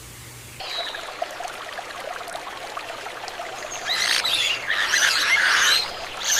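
Birds chirping over a steady background hiss, with a louder, denser run of calls from about four seconds in until shortly before the end.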